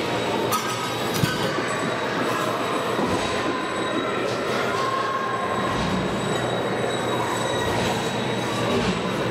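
Steady arena noise of an ice hockey game: skates scraping and carving on the ice, with brief squeals and echoing crowd sound.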